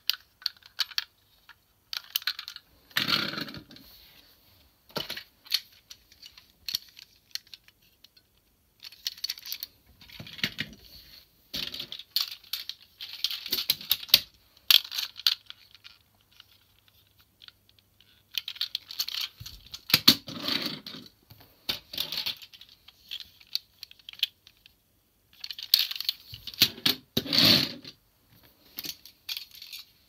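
Plastic toy vehicles being handled: clicking and rattling plastic as they are turned in the hands and set down on a wooden floor. The sound comes in several short bursts with quiet gaps between them, the heaviest knocks about two-thirds of the way in and near the end.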